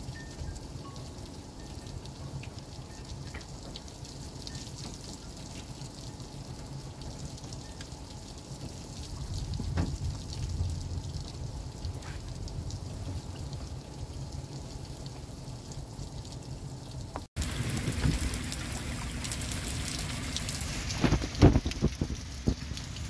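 Heavy thunderstorm rain falling steadily. A low rumble swells briefly about halfway through. Later the rain turns brighter and closer, with sharp drops tapping near the end.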